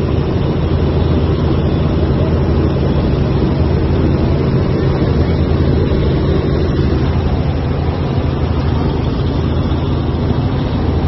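A light helicopter's engine and rotor running steadily in flight, heard from inside the cabin as a loud, even drone.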